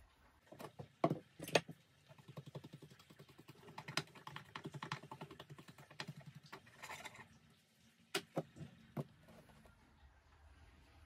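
Handling noises while a sand-casting mould is prepared: sharp clicks and taps of hands and tools on a stone worktop and a small metal flask. A run of quick light ticks fills the middle, and a short rustle comes shortly before a few last clicks.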